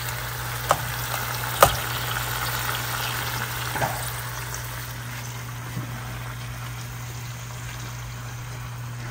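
Tomato, garlic, ginger and cumin masala sizzling in a cooking pot, with a few sharp knocks of a utensil against the pot in the first four seconds. A steady low hum runs underneath.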